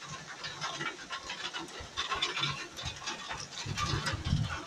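Heavy rain pounding down on trees, with many irregular drops tapping close by. A low rumble swells briefly near the end.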